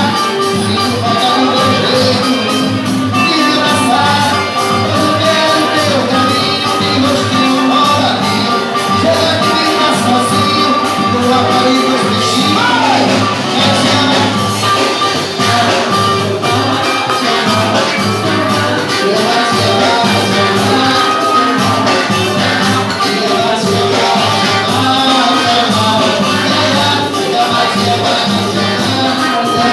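A live band playing upbeat Latin music with a fast, steady percussion beat.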